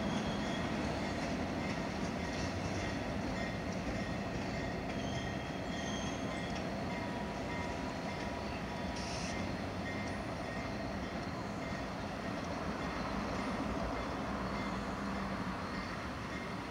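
A short freight train rolling slowly past and away: a steady rumble of wheels on rail that slowly fades, with faint high wheel squeals now and then.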